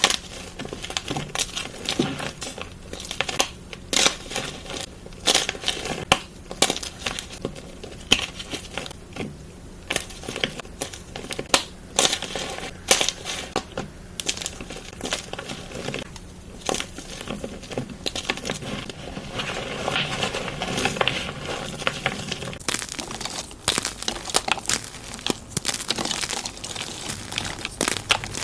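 Blocks of gym chalk being crushed and crumbled, a stream of irregular crunches and crackles, thickening into denser crunching about two-thirds of the way through.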